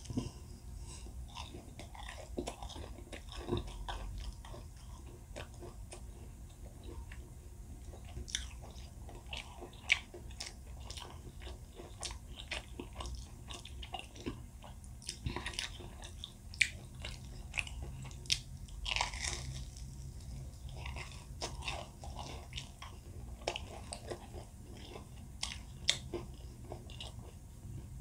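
Close-miked eating: a person biting and chewing crisp fried food, with many sharp crunching crackles throughout.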